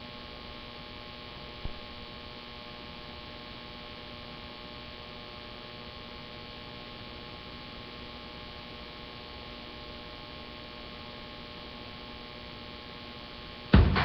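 Steady electrical mains hum made of several constant tones, with a single click about a second and a half in. Loud music with a beat cuts in abruptly at the very end.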